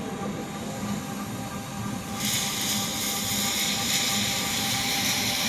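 Hydraulic power unit of a scrap metal baler, its electric motors and pumps, running with a steady hum. About two seconds in, a loud, even hiss starts and holds.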